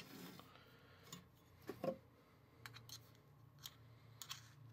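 Faint, scattered clicks and taps of a metal utensil against a small metal cake pan as a baked cake is loosened from the pan's edge.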